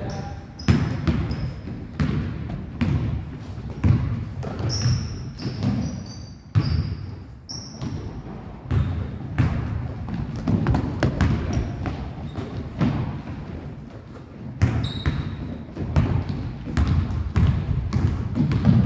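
Basketballs bouncing on a hardwood gym floor: many irregular thumps from dribbling, with short high squeaks of sneakers on the floor now and then.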